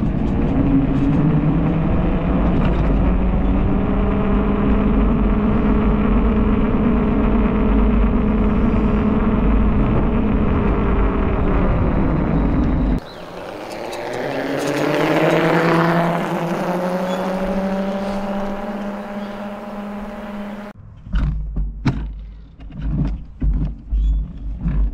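The 1000W electric hub motor of a converted kids' dirt bike whines, its pitch rising as it pulls away in first gear and then holding steady, with heavy wind rumble on the microphone. About halfway through, the sound changes suddenly and the whine climbs steeply again. It then winds down in pitch as the bike slows, and the whine dies out near the end, leaving wind buffeting and a few knocks.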